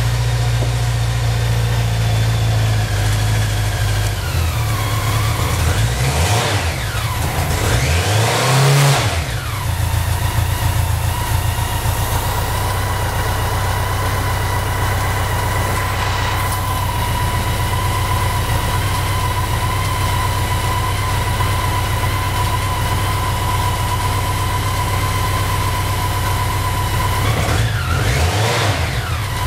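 BMW K100's inline-four engine idling on choke, blipped up and back down about six seconds in, again around nine seconds, and once more near the end. It is the engine's first run after a fuel pump replacement. A thin steady whine sits over the idle.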